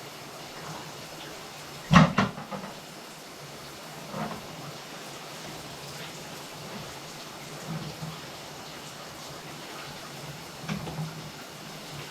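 Scattered knocks and clunks of hard objects being handled: one sharp, loud knock with a short rattle about two seconds in, then a few softer single clunks spaced several seconds apart, over a steady background hiss.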